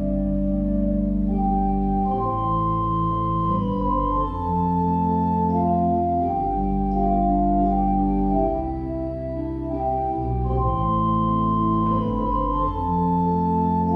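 Church organ playing slow, held chords, with sustained bass pedal notes under a melody that moves from one long note to the next.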